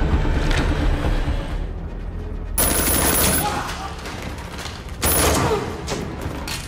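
Film action-scene soundtrack: gunfire over background music, with voices in the mix and two sudden loud bursts, about two and a half seconds in and again about five seconds in.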